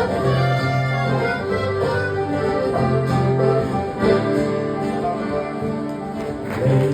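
Instrumental break of an acoustic folk song played live: a melody instrument holding long notes over guitar accompaniment.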